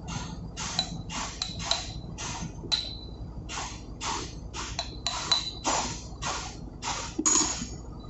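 Repeated metal-on-metal taps, about two a second, several with a short high ring, as a brass tool works the locking plate up against the bolt heads on a main engine starting air valve to lock the bolts.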